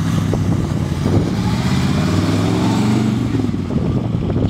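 1955 Chevy 210's small-block 400 V8 with headers running as the car drives past, the exhaust note climbing in pitch about halfway through as it pulls away under throttle.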